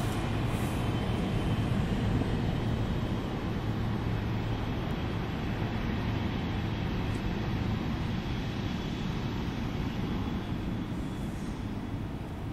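Steady rumble of a Boeing 777's jet engines running at low power, with a low hum, easing off a little near the end.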